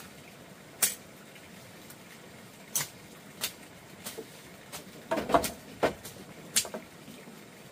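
Cookware being handled: a series of separate sharp knocks and clinks, with a quick cluster about five seconds in, over a steady hiss.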